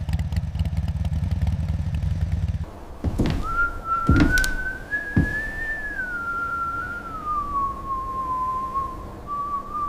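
A motorcycle engine running with a low, fast-pulsing rumble that cuts off about two and a half seconds in. A few sharp knocks follow, then one long whistled tone that rises and falls slowly until the end.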